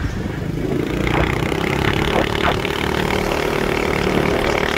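Motor scooter riding along a road at a steady speed, heard from its seat: a steady running drone with a steady whine that comes in about a second in and holds.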